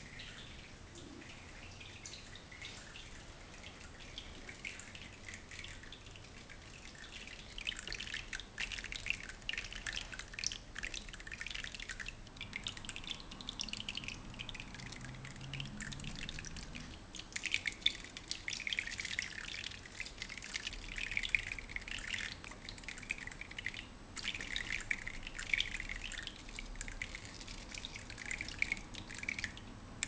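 Fingers flicking and brushing across the stiff thorns of a spiny cactus, a dense run of tiny high clicks that sounds like trickling, dripping water. It becomes much louder and busier about seven or eight seconds in, with a couple of brief pauses.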